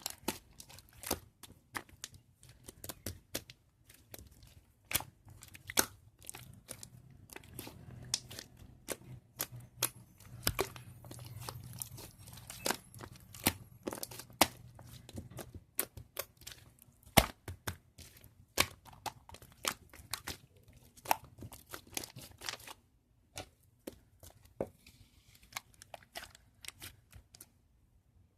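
Slime being worked by hand, giving irregular sharp popping and crackling clicks. The clicks thin out and grow quieter over the last few seconds, then stop shortly before the end.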